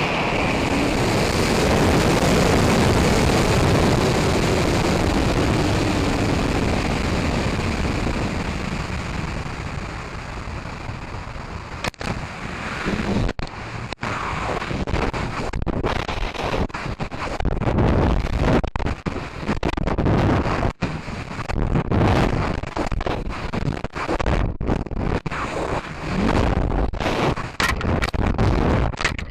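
Heard from on board a high-power rocket: its AeroTech K535 White Lightning motor burning with a loud rush that fades over several seconds into the rush of air over the airframe. From about twelve seconds in, this gives way to choppy, gusty wind buffeting on the microphone as the rocket descends on its recovery harness.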